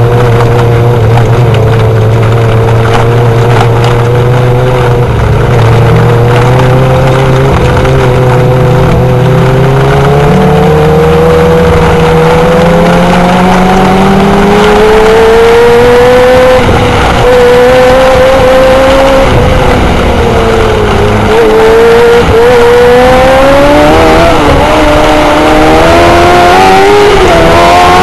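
A pack of micro sprint cars racing, their motorcycle engines revving up and down together as they circle the dirt oval. The sound is loud throughout, and the engine pitch climbs steadily near the end.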